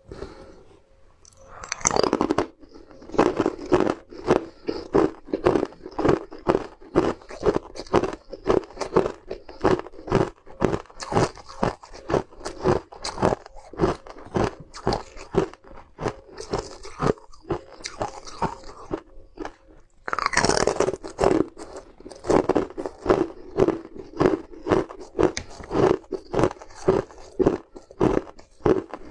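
Crunching frozen rose-shaped ice treats: a loud crunching bite about two seconds in and another about twenty seconds in, each followed by steady crunchy chewing at about two chews a second.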